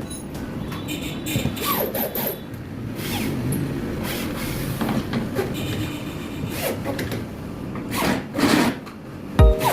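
Carpentry work on wood: steady scraping and rubbing, broken by a few sharp knocks.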